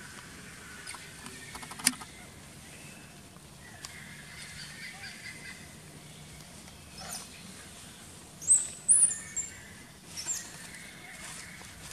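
Forest ambience: a steady background of distant birdsong, a sharp click about two seconds in, then a few loud, short high-pitched bird chirps about two-thirds of the way through and again near the end.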